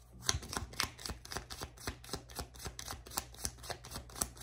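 A deck of tarot cards being shuffled by hand: a quick, even run of card clicks, about five a second.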